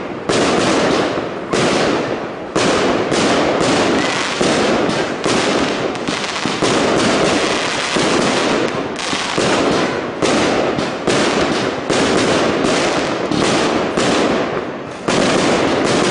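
Aerial fireworks shells bursting one after another in a professional display, roughly one bang a second, the bangs running into each other.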